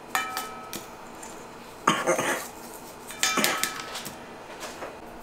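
A metal utensil clinking and scraping against a stainless steel mixing bowl while stirring dry sausage seasoning. The clinks come in three short bursts, each leaving a brief metallic ring.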